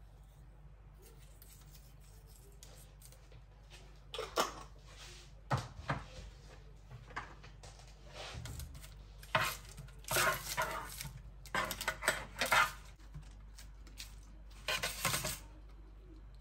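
Irregular clattering and clinking of small hard objects being handled, starting about four seconds in and stopping shortly before the end, over a faint steady hum.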